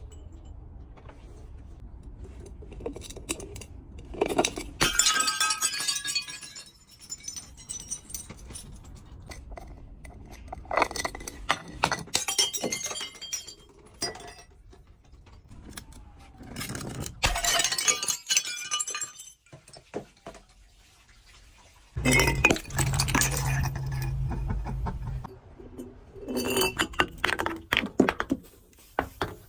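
Glass breaking and broken glass clinking and crunching, in about five separate bursts. A low steady hum runs under the fourth burst.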